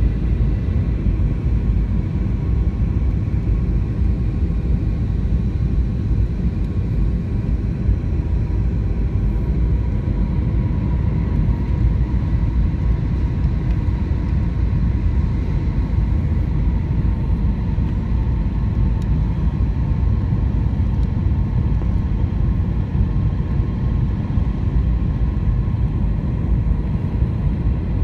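Steady cabin noise inside an Airbus A320-200 airliner descending on approach: a deep, even rumble of the engines and airflow, with faint steady tones above it.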